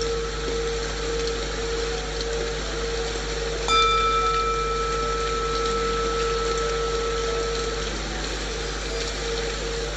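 Steady rain-like white noise under a singing bowl: a low bowl tone hums on, and about four seconds in a bowl is struck once and rings for about four seconds. In this 4-4-8 breathing exercise a single bowl strike is the cue to breathe in.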